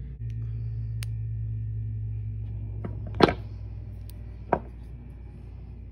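Small sharp metallic clicks from prying the wrist-pin retaining clip out of a Traxxas Pro .15 nitro engine piston, the loudest about three seconds in and another a second later, over a steady low hum.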